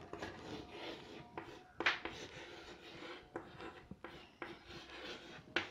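Chalk writing on a blackboard: faint scratches of separate strokes with a few sharper taps, the clearest about two seconds in and near the end.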